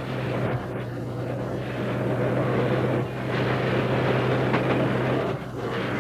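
Disney railroad's No. 2 steam locomotive running: a steady low hum under a noisy rush, dipping briefly just after five seconds in.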